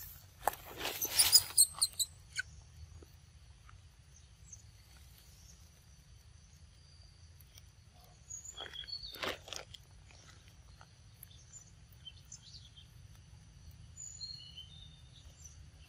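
A young macaque biting into and chewing a ripe mango: wet tearing and crunching of the peel in a burst in the first two seconds and again about nine seconds in. Faint short high chirps and thin steady high tones sound in the background.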